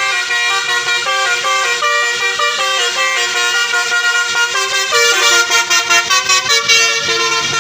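Telolet basuri multi-tone musical horn playing a quick melody of stepped notes. About five seconds in it breaks into a run of rapid staccato toots, roughly four a second.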